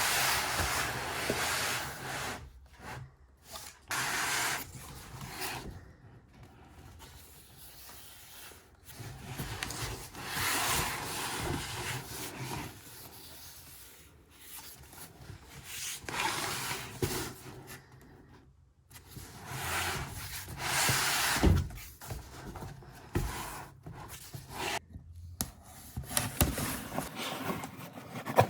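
Packaging being handled while a small gun safe is unboxed: cardboard and wrapping rubbing and scraping in bursts of a few seconds, with quiet gaps and a few sharp knocks.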